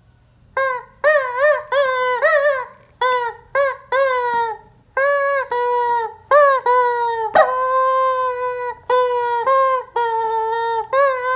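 Rubber chicken squeeze toy squawking over and over: a string of short, loud, pitched squawks, many bending down in pitch, with one long held squawk about seven seconds in.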